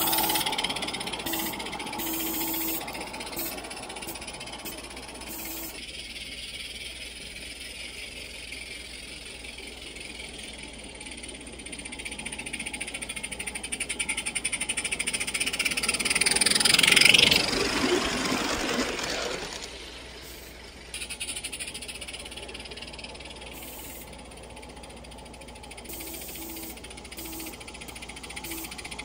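Live-steam 7/8-scale Forney locomotive, a converted Accucraft Emma, running with its train of cars on garden-railway track. It grows louder as it passes close about two-thirds of the way through, then fades. Short high-pitched calls repeat at the start and near the end.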